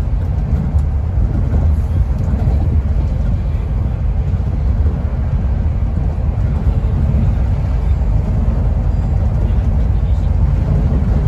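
Steady low drone of a Scania K310IB coach cruising on the highway, heard from inside the passenger cabin: engine and road noise together, with no change in pace.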